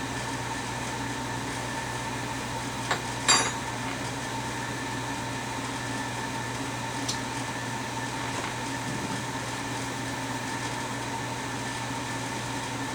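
Steady mechanical hum of a running room appliance. A short clink with a ringing tone comes about three seconds in, just after a softer click.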